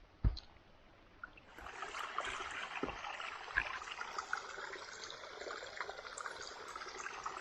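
Small stream of running water trickling, coming up about a second and a half in and running on steadily. A dull thump just before it starts.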